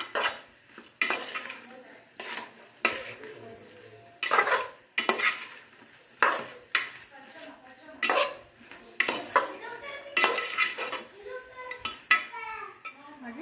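Steel spoon stirring saucy chicken pieces in a large aluminium pot, clanking and scraping against the pot's side in irregular strokes, about one or two a second.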